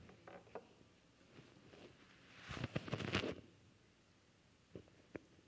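Faint handling noise as a microphone stand is adjusted: soft rustles, then a short cluster of clicks and knocks about two and a half seconds in.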